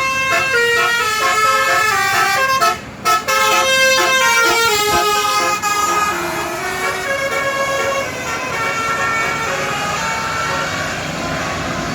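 A bus's basuri musical horn playing a tune: a quick melody of stepped horn notes. It is loudest in the first half and thins out under road traffic noise about eight seconds in.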